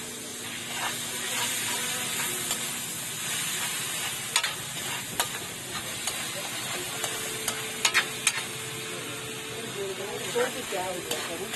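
Food sizzling in a wok while a metal ladle stirs and scrapes it. A few sharp clanks of the ladle against the pan ring out, three close together about eight seconds in.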